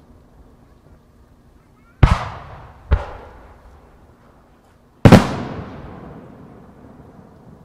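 Aerial firework shells bursting: three loud booms, the first about two seconds in, a second one a second later, and the loudest about five seconds in, each trailing off in a long echo.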